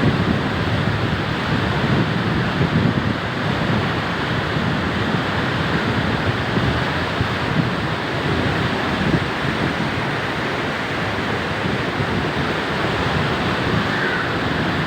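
Steady, loud rushing of water, with no breaks or distinct events.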